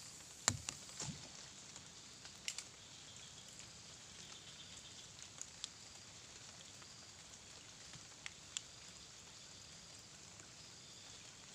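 Light rain falling: a soft, steady patter with a few sharp ticks scattered through, the loudest about half a second in.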